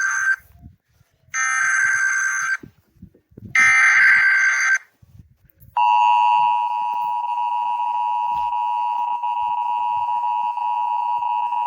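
Emergency Alert System alert. First come the digital header data bursts: the tail of one, then two more, each about a second long with short silent gaps. About six seconds in, the steady two-tone EAS attention signal starts and holds.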